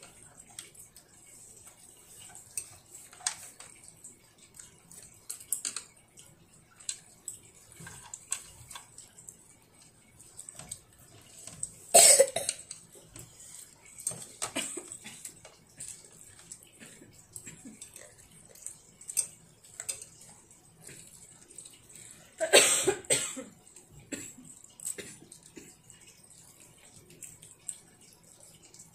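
Two coughs, about ten seconds apart, the second longer than the first, over light clicks and taps of chopsticks on a plastic plate during a meal.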